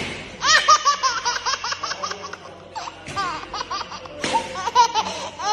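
A baby laughing hard, a run of quick, high-pitched squealing giggles that starts about half a second in.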